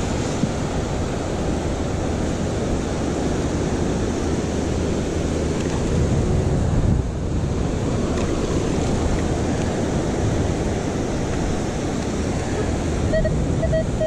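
Ocean surf with wind buffeting the microphone, a steady rushing wash. About a second before the end, a metal detector starts a quick string of short, pitched beeps.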